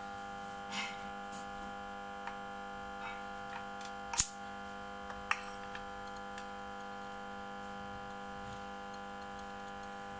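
A steady hum, with a handful of small metallic clicks and taps as a compression tester's adapter and hose are handled and fitted into the spark plug hole of a V6 engine; one sharp click about four seconds in is the loudest.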